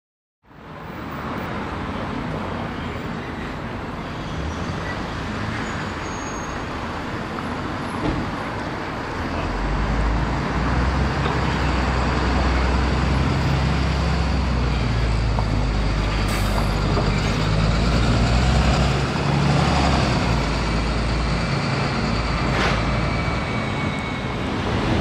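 Street traffic with the diesel engine of a Wright Gemini 2 double-decker bus. The bus's low engine rumble swells about ten seconds in as it drives round the roundabout close by, holds, then eases off a few seconds before the end.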